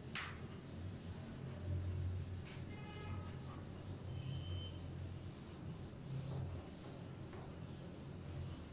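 Whiteboard eraser rubbing across a whiteboard in repeated strokes, wiping off marker writing.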